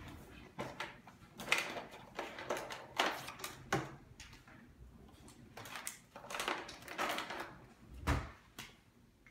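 Things being handled and unpacked from a cardboard kit box on a countertop: irregular rustling, scraping and clunks, with a heavier thump about eight seconds in.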